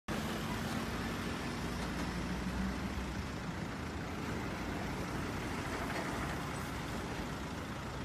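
Engine of a truck-mounted aerial boom lift running steadily while the boom is raised, a low hum that eases a little after about three seconds.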